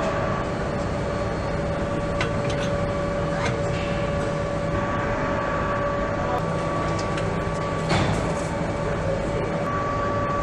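Factory-floor machine noise from an electric-motor assembly line: a steady hum with two high, even tones, broken by scattered clicks and knocks. The loudest knock comes about eight seconds in.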